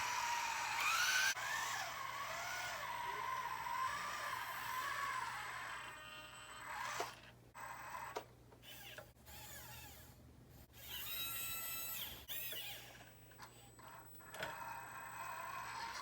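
Small electric motors of radio-controlled models whining, their pitch rising and falling with the throttle and stopping and starting several times, with a higher whine gliding down about eleven seconds in.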